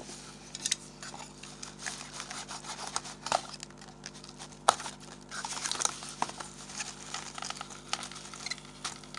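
Paper tea sachets and the cardboard gift box rustling and scraping as the sachets are tugged at in their packing, with scattered small clicks and one sharp click about five seconds in. The sachets are stuck fast and do not simply come out.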